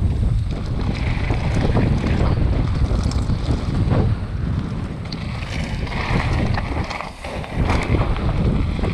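Wind rumbling hard on the microphone of a mountain bike's on-board camera, mixed with the tyres rolling and crunching over loose slate gravel and small rattling clicks from the bike, easing briefly about seven seconds in.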